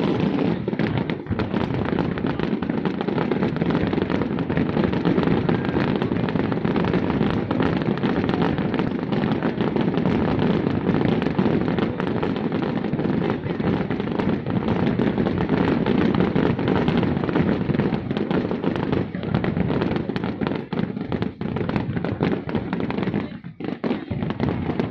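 Fireworks display going off continuously: a dense, unbroken run of bangs and crackles, with a brief lull near the end.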